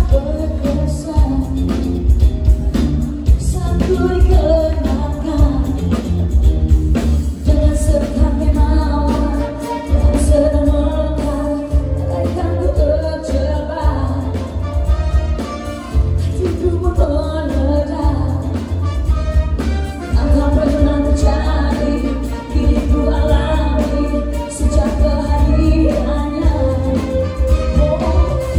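Live band playing a pop song with a woman singing the lead, over a strong bass line, during a sound-check rehearsal.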